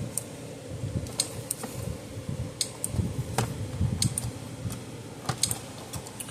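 Gallagher M150 electric fence energizer running on the bench, giving a sharp tick with each output pulse about every 1.4 seconds, with no arcing snap. Lighter irregular clicks and knocks of handling fall between the pulses.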